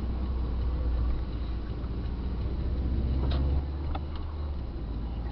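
Car driving on a wet road, heard from inside the cabin: a steady low engine and road rumble with tyre hiss. The rumble eases a little after three and a half seconds. There is a brief squeak just before that and a couple of faint ticks after.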